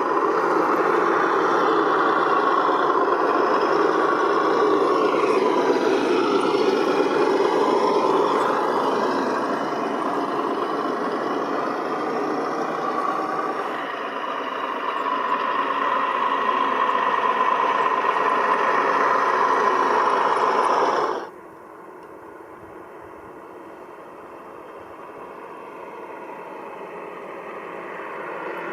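Recorded MAN V8 truck engine sound from an ESS-One sound module in an RC crawler truck, running loud with its pitch shifting up and down as the throttle changes. About three quarters of the way through it drops suddenly to a much quieter, low running sound that slowly grows louder again.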